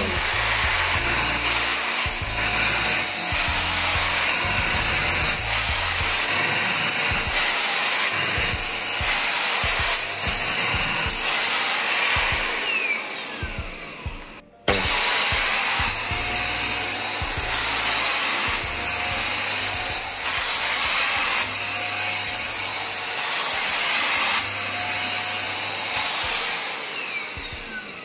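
AGARO Regal 800 W corded handheld vacuum cleaner running, sucking on sofa upholstery, with a whine that rises and falls every couple of seconds. Its motor is switched off and winds down with a falling whine about halfway through, runs again, and winds down once more near the end.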